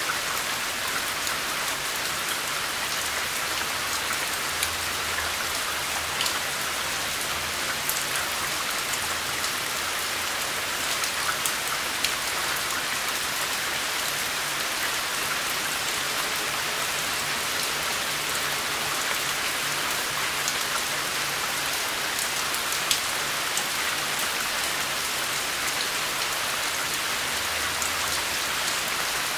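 Steady rain falling on a surface, an even hiss with scattered sharper drop hits.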